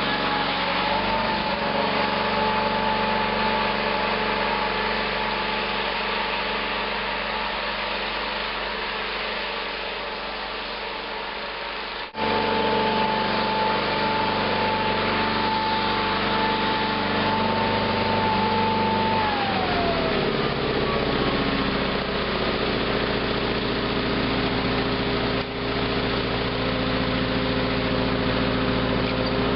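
Sears 18/6 garden tractor engine running steadily under load while plowing snow, with a high steady whine over the engine note. The sound breaks off sharply about twelve seconds in and picks up again at once. A little before twenty seconds the whine drops in pitch and the engine note changes.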